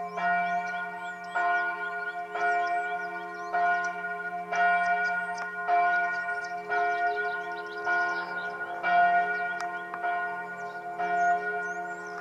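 Church bells of the Benediktbeuern abbey church ringing. Strokes come about once a second, each ringing on into the next over a steady low hum.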